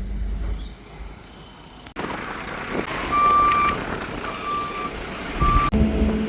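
A low engine rumble, then a vehicle's reversing alarm beeping three times over machinery noise. Near the end a steady engine hum takes over.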